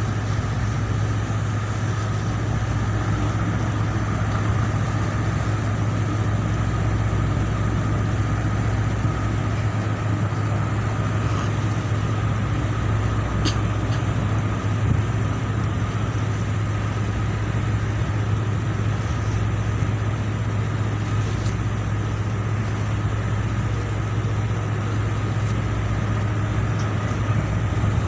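Steady low drone of a ship's diesel engine running at a constant speed while the vessel is worked alongside a large ship.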